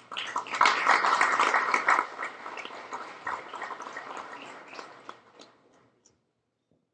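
Audience applauding, loudest in the first two seconds, then dying away over the next few seconds.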